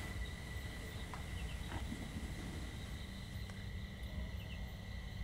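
Faint night ambience: insects chirping softly now and then over a low steady hum.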